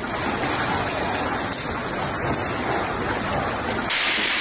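Torrential storm rain pouring down in a dense, steady hiss. About four seconds in it switches abruptly to a brighter, harsher rush of rain.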